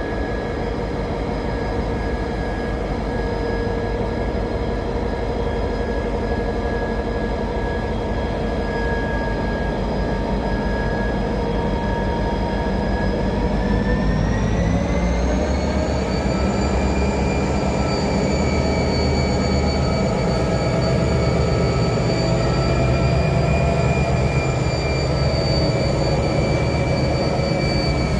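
Pacific National 81 class diesel-electric freight locomotive running slowly past at close range: a steady engine drone with a whine. About halfway through, the whine rises in pitch and holds, and the deep rumble grows louder.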